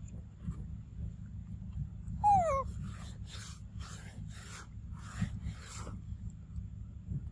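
An animal's short cry falling in pitch, then a run of about six harsh rasping calls, roughly two a second, over a steady low rumble.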